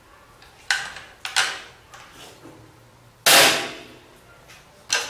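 Break-barrel air rifle being closed and fired: two sharp clicks as the barrel is locked shut, then a single shot about three seconds in, the loudest sound, with a short ringing tail. Another sharp click comes near the end.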